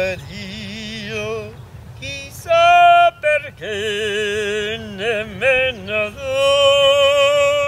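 A man singing in operatic tenor style with a strong vibrato, several short phrases and then a long held note near the end.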